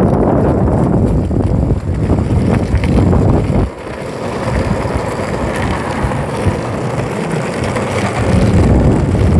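Skateboard wheels rolling over a concrete path: a steady low rolling noise with wind buffeting the microphone. It drops briefly a little over a third of the way in, then builds again.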